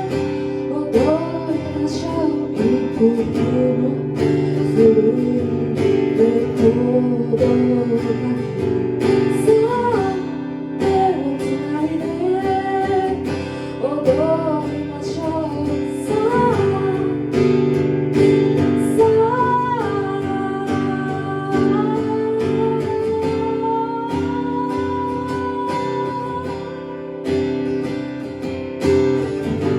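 Live acoustic guitar music: steady strummed chords under a melody line that bends in pitch, with a long held note in the second half.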